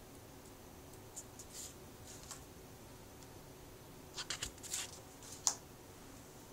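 Paper index cards being handled and swapped: a few short, papery rustles and flicks, with a cluster of them about four seconds in and a sharper flick a second later, over a faint steady hiss.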